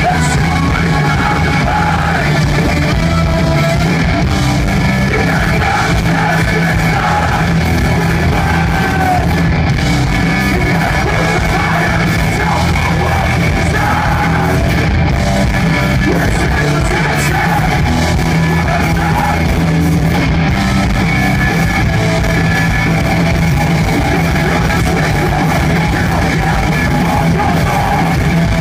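Hardcore punk band playing live at full volume: distorted electric guitars, bass and drums, with shouted vocals over them.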